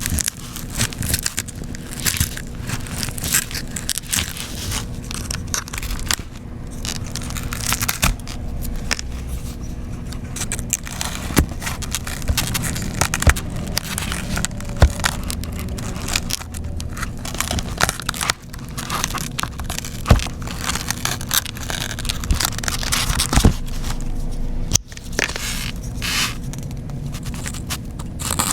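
Close-up handwork on an iPad with a shattered screen: continuous scraping and crackling, broken by many sharp clicks and taps.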